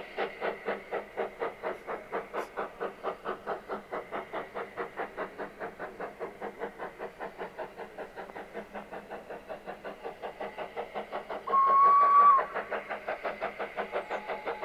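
Narrow-gauge steam locomotive working under steam, its exhaust chuffing in a steady rhythm of about four to five beats a second. A short whistle blast sounds about twelve seconds in.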